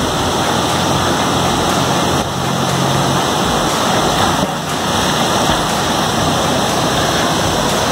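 River water rushing steadily over a shallow rocky stretch: a loud, even hiss.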